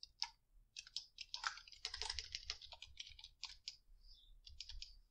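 Computer keyboard typing: quick irregular runs of keystrokes, with a short pause near the end before a few more.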